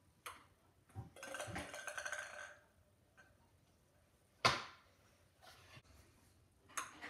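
Ping pong ball and paddle: a couple of light clicks, a run of quick small bounces about a second in, and one sharp knock about four and a half seconds in.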